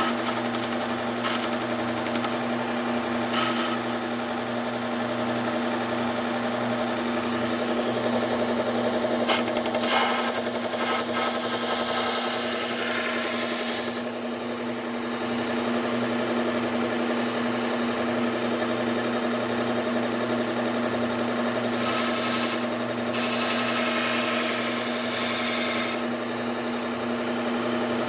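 Bucktool low-speed belt sander running with a steady hum while a hunting knife blade is ground against its Cubitron 120 belt in passes. The blade makes a hissing rasp while it is on the belt, loudest from about ten seconds in and again from about twenty-two seconds in.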